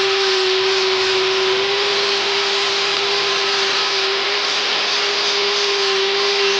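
An electric power tool's motor running steadily: a constant whine over a loud hiss.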